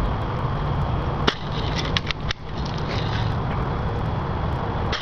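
Red Ryder spring-powered BB rifle firing once, a sharp click about a second in, over a steady low rumble of wind on the microphone, with a few fainter ticks after the shot.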